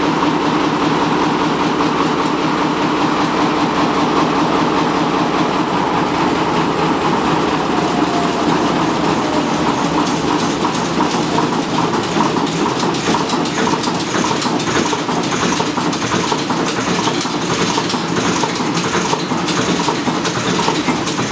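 Large Peter Brotherhood multi-cylinder diesel engine running steadily at a constant speed, with a fast, even clatter.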